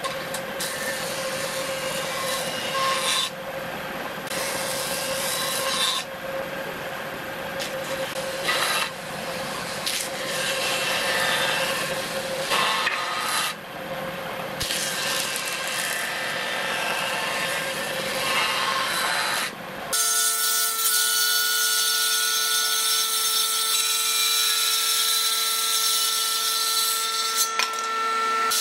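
Combination woodworking machine with a jointer cutterhead planing boards pass after pass: the cutting noise swells and drops over a steady motor hum. About twenty seconds in it changes abruptly to a circular saw blade running with a steady whine and hiss as boards are ripped.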